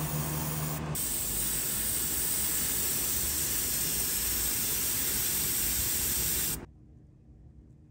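Airbrush spraying paint: a steady, high hiss of air and paint mist, with a brief break about a second in, then cutting off suddenly near the end.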